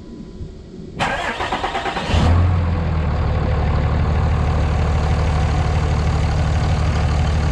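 Dodge 5.9-litre Cummins diesel engine being cranked by the starter about a second in, catching about a second later with a surge, then settling into a steady idle.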